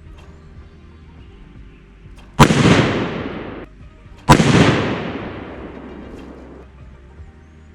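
Two rifle shots from a Remington 700 in .223 Remington, about two seconds apart, each sharp crack followed by a long fading echo.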